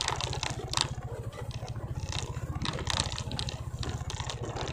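Motorcycle engine running steadily at low speed, with short bursts of rattling and scraping as the bike goes over the rough, grassy path.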